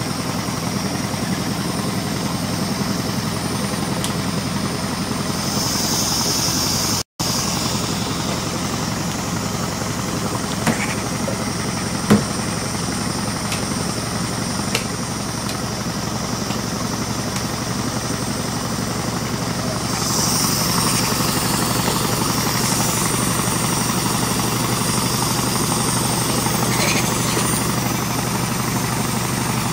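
Steady machine noise, like a small motor running, with a brief dropout about seven seconds in and a slight rise about twenty seconds in.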